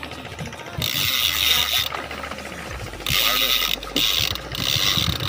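Fishing reel ratchet clicking in repeated bursts of about a second each, with short breaks between them.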